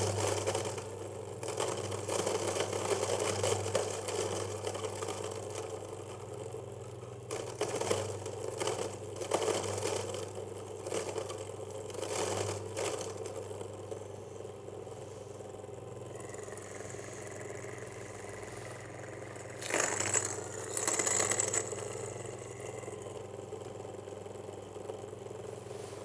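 Fellow Ode electric flat-burr coffee grinder running steadily, crunching a 13 g dose of light-roast beans, with crackling that thins out as the dose runs through the burrs. About twenty seconds in there is a short louder spell of grinding as beans stuck in the hopper are pushed down into the burrs.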